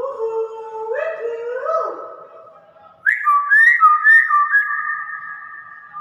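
Hill myna whistling: a lower phrase of clear, two-toned whistles with stepped rises, then about three seconds in a louder, higher whistled phrase with quick up-and-down inflections.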